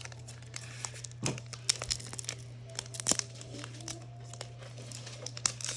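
Foil card-pack wrappers crinkling and rustling as Pokémon cards are handled, in irregular sharp crackles.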